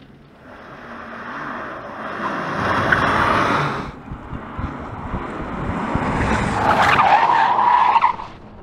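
Tyres of an electric Porsche Macan squealing under hard driving, twice: building to a peak about three seconds in, then louder again near the end, over a low rumble of tyre and road noise. No engine note, as the car is electric.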